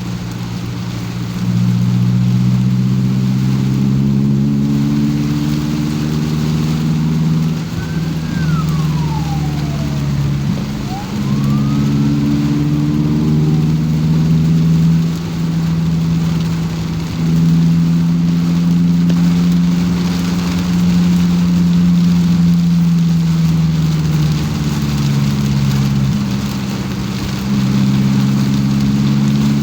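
Car engine running while driving in the rain, heard from inside the cabin. Its low note holds steady for stretches and shifts up and down every few seconds, over a constant hiss of rain and tyre spray. About eight seconds in, a faint tone falls and then rises again.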